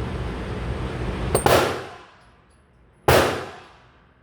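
Two loud gunshots about a second and a half apart, each sharp and then ringing away over nearly a second.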